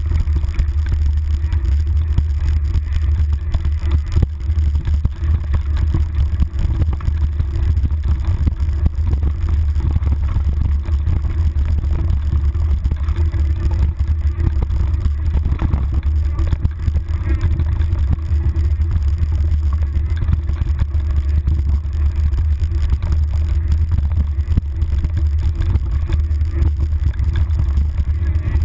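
Mountain bike descending a rough, rooty trail at speed: a steady low wind rumble on the handlebar-mounted camera, with constant rattling and knocking of the bike over roots and rocks.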